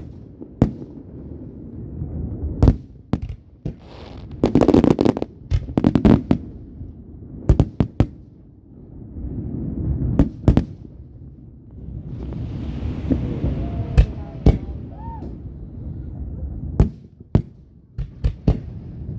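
Fireworks going off: a string of sharp bangs and cracks over a continuous low rumble, with a dense burst of crackling about five seconds in and a hiss with a short whistle around the middle.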